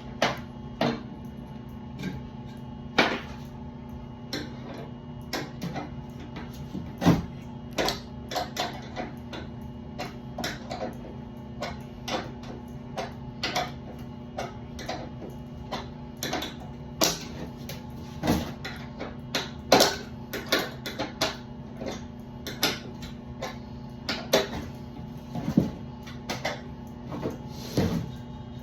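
Irregular clicks, taps and knocks of tools and parts being handled during work on a furnace, a few of them sharper, over a steady low hum.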